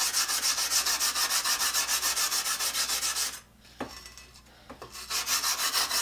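Brass wire brush scrubbing rust off a vinegar-soaked carbide circular saw blade in quick, even back-and-forth strokes, about four or five a second. The scrubbing stops for about two seconds just past the middle, with a couple of light clicks, then starts again.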